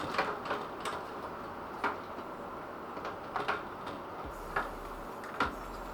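Scattered light plastic clicks and taps as a case fan's cable connector is handled and snapped into place in a PC case.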